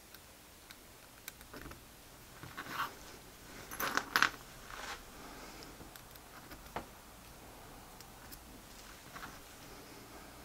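Light metallic clicks and clinks of thin metal push rods being picked from a loose pile on the bench and slotted into a miniature V6 model engine. The clinks come in small clusters, the loudest about four seconds in, with a single sharp click near seven seconds.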